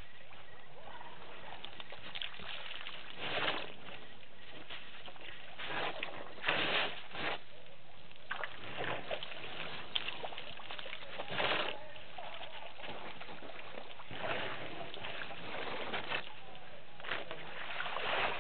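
African elephants drinking at a waterhole: short bursts of splashing and sloshing water every few seconds as they draw water up their trunks and squirt it into their mouths.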